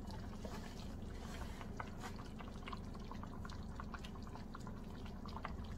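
Oxtail stew simmering in a cast-iron pot: small bubbles popping and crackling in the cooking juices, irregularly throughout, over a faint steady low hum.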